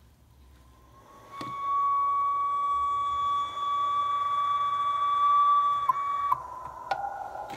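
A small live steam locomotive's whistle sounding one long, steady, high note, which drops to a lower, weaker note about six seconds in. A couple of light clicks come from handling the engine.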